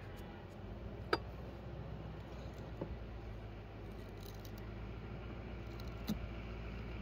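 A few sharp clicks and knocks of wooden beehive equipment being handled, about a second in, near three seconds and again near six seconds, over a steady low hum.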